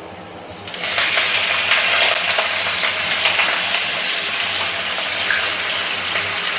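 Raw chicken pieces dropped into hot sesame oil with sliced ginger in a frying pan: a little under a second in, a loud sizzle starts suddenly and keeps going steadily as the chicken begins to fry.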